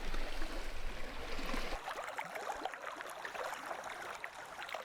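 Small waves lapping and splashing at a lake shore, with a low wind rumble on the microphone that stops abruptly about two seconds in.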